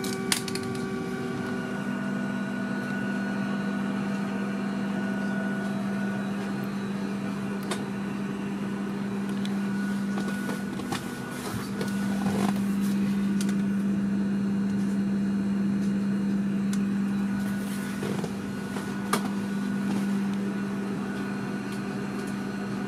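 Steady low hum of air-conditioning and ventilation inside a parked airliner cabin, with a few faint clicks and knocks.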